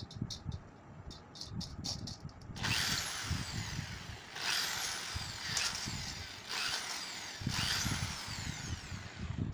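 Electric hand drill running in four short bursts, its bit cutting holes through the thin plastic globe of a used LED bulb, with a high whine that falls in pitch in each burst. A few handling clicks come before the first burst.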